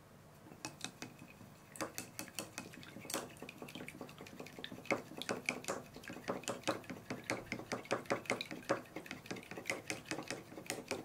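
Chopsticks beating raw eggs in a ceramic bowl: rapid clicking of the chopsticks against the bowl, about three to four taps a second, getting busier about two seconds in.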